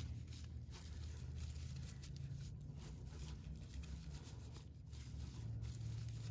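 Soft, irregular rustling and scratching of raffia yarn as a metal crochet hook draws it through single crochet stitches, over a steady low hum.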